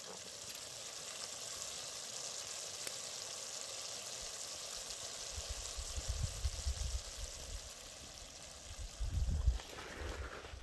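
Bear meat and onions sizzling steadily in a cast iron pot over a campfire. From about halfway through, low buffeting rumbles on the microphone join in, with a louder bump near the end as the sizzling fades.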